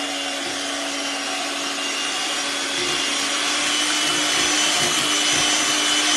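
Electric hand mixer running steadily, its twin whisk beaters whipping a thick cream mixture in a glass bowl; a constant motor hum and whir.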